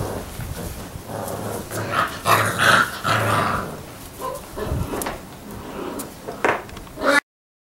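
Six-week-old Labrador retriever puppies growling as they play-fight, in uneven bursts with scattered clicks. The sound cuts off abruptly about seven seconds in.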